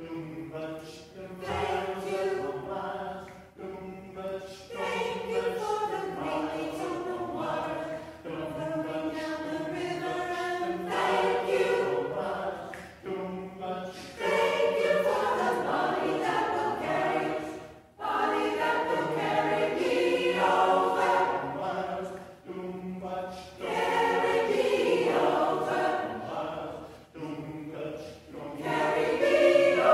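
Small mixed-voice choir singing a cappella in parts, phrase after phrase, with short breaks for breath between phrases.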